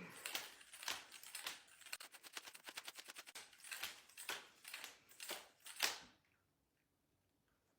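Rapid clicking and clacking of a 4x4 Rubik's cube's layers being turned quickly by hand during the last moves of a solve, stopping abruptly about six seconds in.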